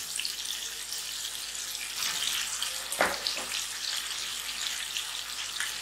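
Chicken in green chutney gravy sizzling steadily as it fries in a nonstick wok over a gas flame, with one short knock about three seconds in.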